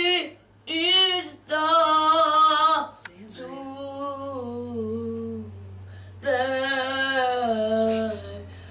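A woman singing long, held notes in several phrases with short breaks, the middle phrase lower and falling in pitch.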